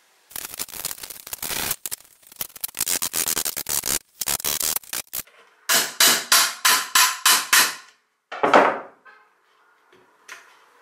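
Metal knocking and rattling on a steel air-filter housing, then about seven hammer blows on a screwdriver, roughly three a second, driving the wire-mesh element out of a Land Rover Series oil bath air filter, followed by one longer scrape as the element shifts.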